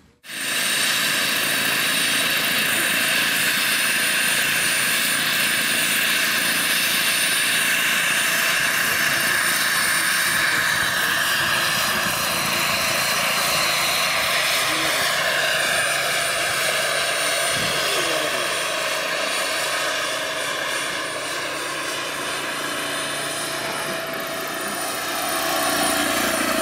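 Radio-controlled scale Bell Jet Ranger model helicopter running, with a steady whine from its rotors and drive and a constant high tone over it. The pitch glides a couple of times as it lifts off and flies.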